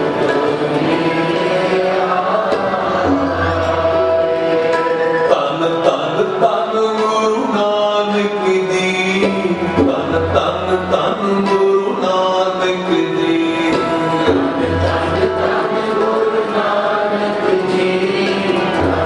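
Sikh kirtan: male voices singing a devotional hymn to two hand-pumped harmoniums and tabla. The harmonium chords hold steady under the melody, and deep tabla strokes sound every few seconds.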